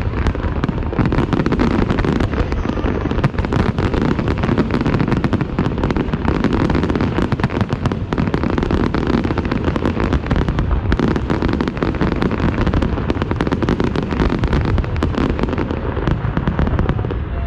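Fireworks display at close range: a dense, continuous barrage of bangs and crackling bursts, many each second, over a low rumble.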